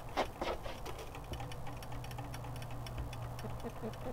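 Rooster pecking at the metal-pinned nipple drinkers under a plastic bucket waterer as it drinks: a rapid, uneven run of small ticks and taps, with a low steady hum in the middle.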